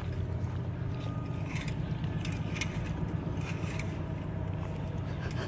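A steady low hum of a running motor, with a few faint scrapes and clicks over it.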